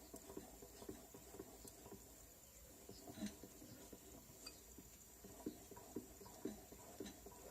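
Faint, light knocks from an СО-7Б paint-spraying compressor unit, irregular at first and then about two a second in the second half, over a faint steady high whine.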